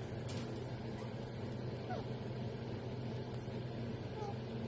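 A steady low hum, with a few faint short chirps from a green parrot and a brief click near the start.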